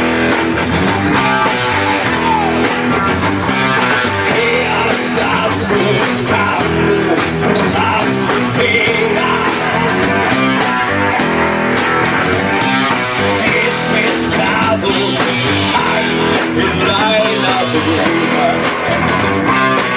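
Hard rock band playing loud and steady, with guitars, bass and drums and a voice singing.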